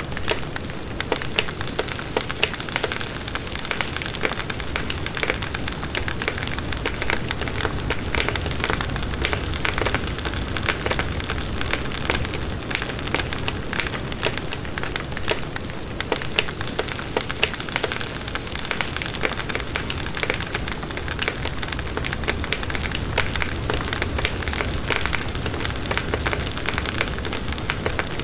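Bonfire burning steadily, with a constant hiss and a dense stream of small crackles and pops from the burning wood.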